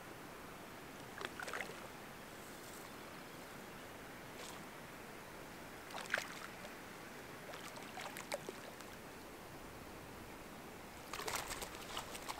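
A hooked brook trout splashing at the lake surface now and then as it is played on a fly rod, with a quicker run of splashes near the end as it is brought in to hand. A faint steady hiss underneath.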